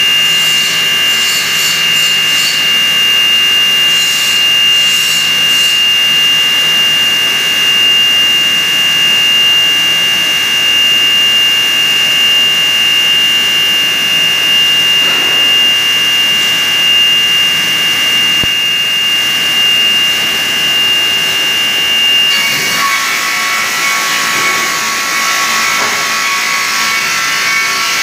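Multi-blade rip saw for cutting pallet boards running with a steady high whine; about 22 seconds in a board feeds into the blades and the whine drops in pitch as the saw cuts under load, with rough sawing noise.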